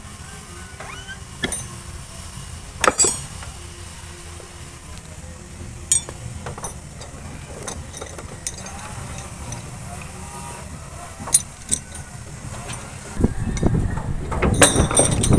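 Scattered knocks and clinks over a steady low hum, turning into a louder stretch of rumbling and repeated knocking about thirteen seconds in.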